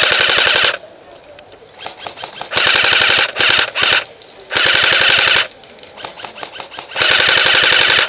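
AK-pattern airsoft rifle firing short full-auto bursts, a rapid even rattle of shots. About five bursts of half a second to a second each, with short pauses between; one ends just under a second in and the last runs on at the end.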